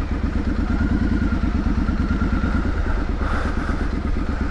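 Triumph Street Scrambler's 900 cc parallel-twin engine running at low revs through its exhaust, a steady pulsing beat.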